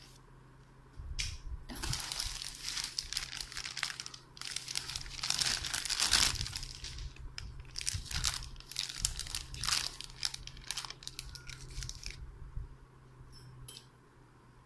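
Clear plastic packaging crinkling and rustling as it is handled and opened by hand, in bursts from about two seconds in, loudest about halfway, dying down to a few light clicks near the end.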